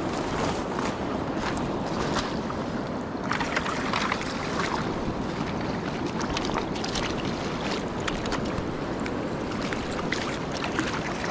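Steady rush of a fast-flowing river current, with wind noise on the microphone and scattered short, sharp sounds on top.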